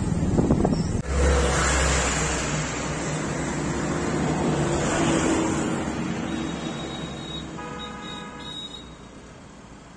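Road vehicle going by, its rumble starting suddenly about a second in and slowly fading away; a short pitched tone sounds near the end.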